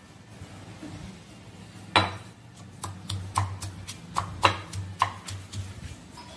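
Stone mortar and pestle pounding green chillies, garlic and cumin seeds into a paste. It is fairly quiet for the first two seconds, then about eight sharp, irregular knocks of the pestle follow, the first the loudest.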